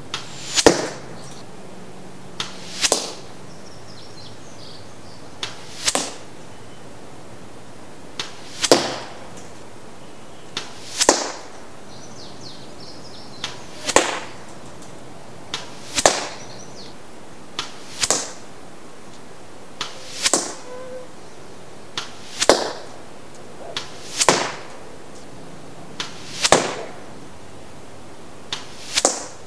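Arrows flying in one after another, about thirteen in all at roughly two-to-three-second intervals: each a faint click, then a short swelling whoosh, some with a whistle from the vanes, ending in a sharp smack.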